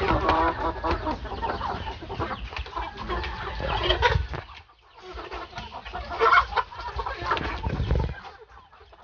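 A flock of Marans hens clucking, with a short lull about halfway through.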